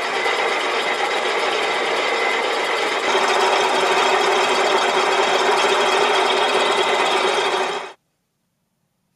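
Milling machine spindle running while a cutting tool takes a test cut along a spinning cylinder of synthetic resin bonded paper, a steady dense machining noise with a steady tone in it. It gets louder about three seconds in and cuts off suddenly near the end.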